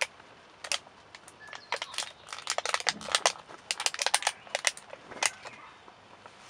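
Thin black plastic seedling tray crackling and clicking as seedlings are prised out of its cells with a knife blade: a fast, irregular run of sharp clicks, thickest in the middle and stopping about five seconds in.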